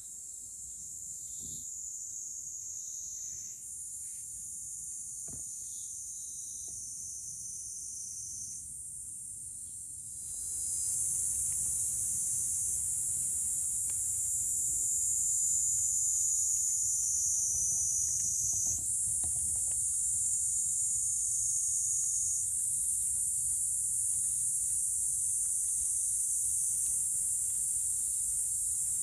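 A steady, high-pitched chorus of insects singing, which grows louder about a third of the way in.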